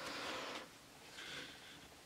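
Faint soft rustling of a folded paper towel dabbing up a drop of water on watercolour paper, in two short spells: one during the first half second and a quieter one just past the middle.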